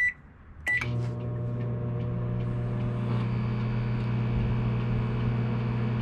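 Two short keypad beeps from a 1100-watt microwave oven as its cook time is set and started, then about a second in the microwave starts up and runs with a steady hum. It is running without issue on a 2000-watt pure sine wave inverter fed by LiFePO4 batteries.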